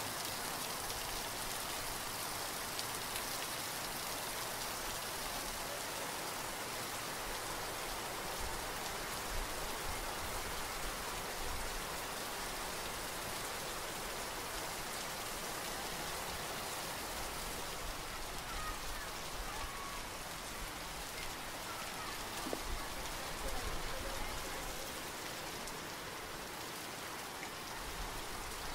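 Steady rain falling, an even hiss of drops on a surface, with a few faint low rumbles now and then.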